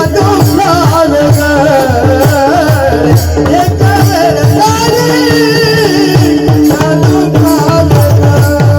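Marathi devotional bhajan: a singer's voice carrying a wavering, ornamented melody over a steady held drone, with hand-drum strokes keeping a repeating rhythm.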